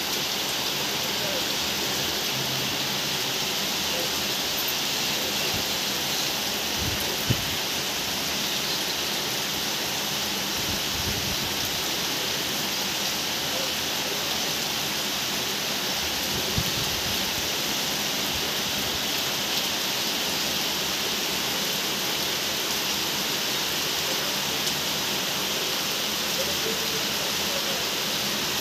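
Heavy rain pouring down steadily on roofs and the street, an even hiss that does not let up. Twice a brief knock or drip stands out over it.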